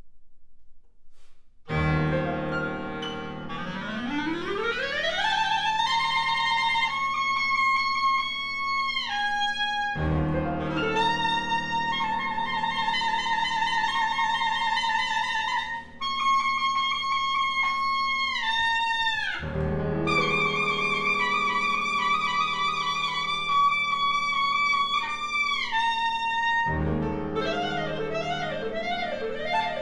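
Clarinet and piano playing: after a brief hush a low piano chord sounds and the clarinet slides up from its low register to a held high note. Long clarinet phrases follow, each note bending down in pitch as the phrase ends, over sustained piano chords that come in three more times. Near the end the clarinet breaks into a fast, wavering figure.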